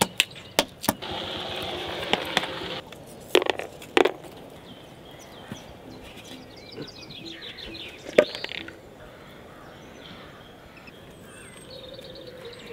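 A hammer knocking on peanut shells against a wooden board: several quick sharp knocks in the first second. Two heavier knocks follow a few seconds in, then quieter outdoor sound with one more sharp knock later.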